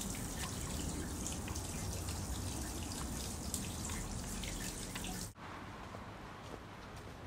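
Water trickling and dripping into the stone basin of a Shinto shrine's temizuya purification fountain. It cuts off abruptly about five seconds in.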